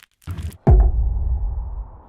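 Deep impact sound effect from an advert's sound design: a short knock, then a heavy low hit about half a second in that drops sharply in pitch and fades over about a second.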